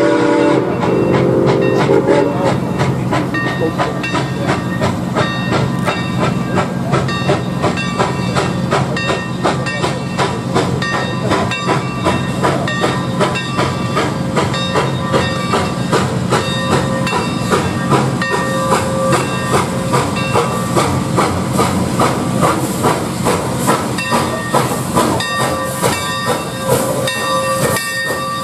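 Santa Fe 3751, a Baldwin 4-8-4 steam locomotive, approaching and drifting in past the platform. Its exhaust chuffs in a steady beat of about two a second over a hiss of steam, and the beat grows more distinct as it draws near. A train's chime chord ends about two seconds in.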